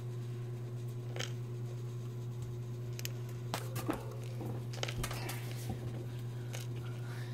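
Scattered small clicks and rustles of a pet hamster moving about in its wire cage and bedding, busiest around the middle, over a steady low hum.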